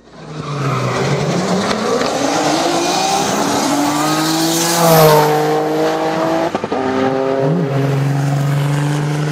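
Audi Coupe quattro drag car with a twin-turbo 2.7-litre V6 launching and accelerating hard, its engine note rising in pitch. It is loudest about five seconds in, then falls back after a gear change and runs at a steady pitch.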